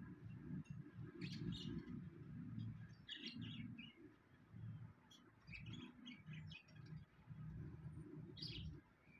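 Small birds chirping faintly, short high calls several times over a few seconds, over a low rumbling background.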